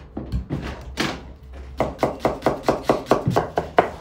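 Knife chopping on a wooden board, likely cutting samsa filling. A few scattered strikes come first, then from about two seconds in a steady, rapid run of about six strokes a second.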